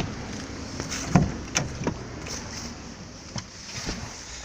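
Several sharp knocks and clicks of hands working at a car, over a low steady background; the loudest knock comes about a second in.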